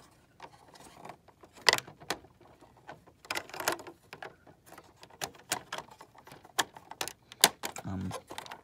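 Plastic Lego bricks clicking and rattling as pieces are handled and pressed into place, with irregular small clicks throughout and sharper clicks about a second and a half in and again near the end.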